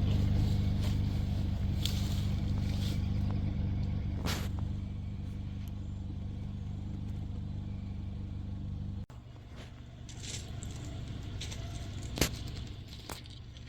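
An engine idling with a steady low hum that cuts off abruptly about nine seconds in, followed by quieter background noise and a sharp click a few seconds later.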